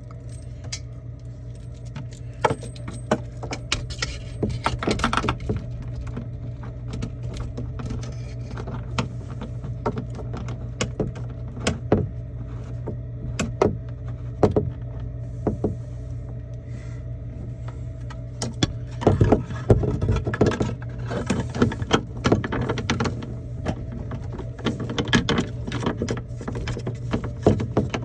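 Plumbing fittings and hand tools clicking, knocking and rattling as a PEX supply line is disconnected from a faucet and a new supply hose is fitted. The handling gets busier about two-thirds of the way through and again near the end, over a steady low hum.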